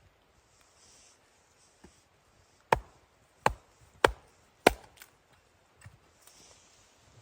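Four sharp chopping strikes into wood in quick succession, a bit under two a second, near the middle.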